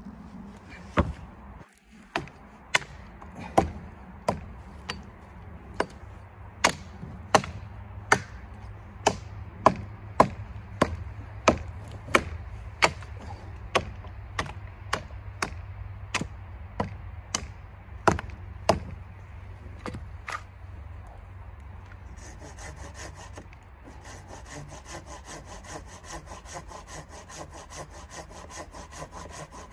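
A hatchet chopping into a felled pine log, about two sharp strikes a second for some twenty seconds. After a short pause, a folding hand saw cuts into the log with steady back-and-forth strokes.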